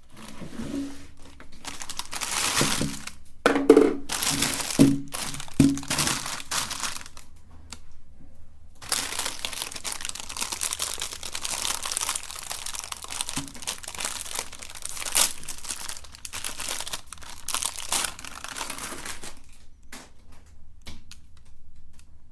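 Plastic wrappers crinkling and tearing in irregular bursts with short pauses, as packaged ice cream and candies are handled and unwrapped.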